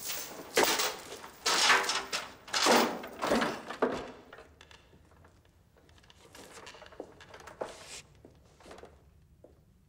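Scuffling and heavy thuds as a hooded captive is manhandled onto a wooden chair, loudest in the first four seconds, then a few faint knocks.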